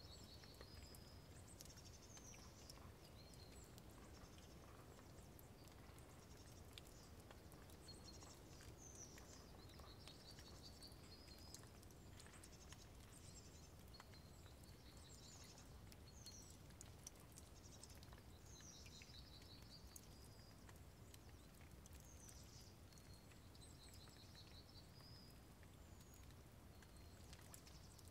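Faint birdsong: a small bird repeating short, high, rapidly trilled phrases every few seconds, over a steady low background hiss with scattered faint ticks.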